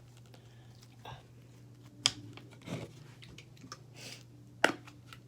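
Sticky slime being handled, giving soft squelches and a few sharp sticky clicks, the two sharpest about two seconds in and near the end.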